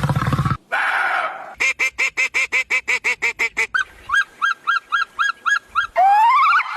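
Animal calls in quick succession, in what sound like separate recordings. First come rapid honking calls, about six a second, for some two seconds. Then a higher series of short calls, about five a second, and near the end loud calls that rise in pitch.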